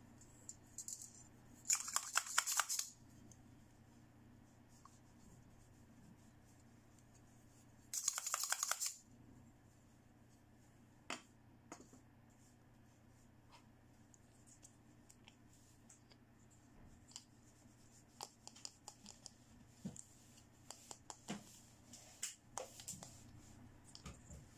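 Plastic plunger of a toy syringe scraping in its barrel, two strokes of about a second each, a few seconds apart. Then scattered light clicks and taps as the plastic toys are handled and set down.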